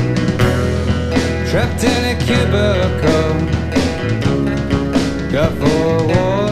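A rock band playing: drum kit and guitars over a steady bass, with a lead vocal line sung over it.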